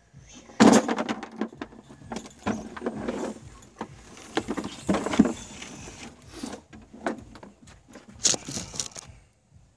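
Handling noise from an acoustic guitar being moved and swung about close to the microphone: irregular knocks, scrapes and rustles, the loudest knock coming just under a second in.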